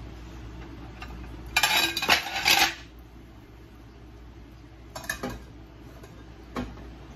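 Dishes clattering for about a second, then a couple of lighter clinks and a single knock as a plate is laid over a steel saucepan as a lid.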